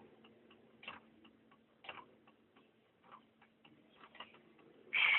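Mechanical automaton's mechanism ticking, with a sharper click about once a second and fainter clicks between, over a steady low hum. A short, louder noise comes just before the end.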